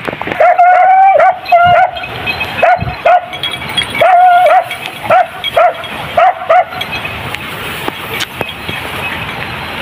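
Hunting dog baying on a chase: a run of about ten high yelping barks over some six seconds, several of them drawn out, then they stop.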